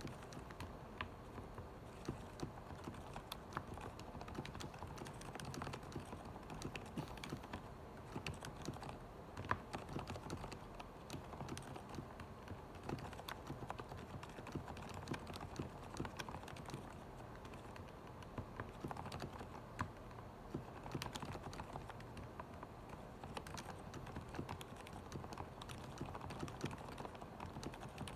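Continuous typing on a Corsair Strafe mechanical keyboard with Cherry MX Silent Red linear switches lubed with Krytox 205g0: a steady stream of soft, muffled keystrokes, with the odd louder key such as a stabilized key.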